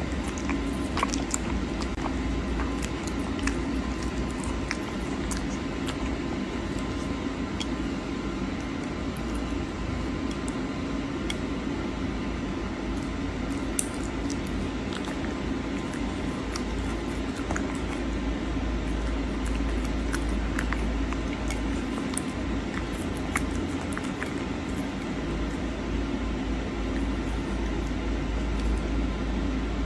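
A caracal eating raw salmon: wet chewing and licking sounds, with scattered small clicks, over a steady low background hum.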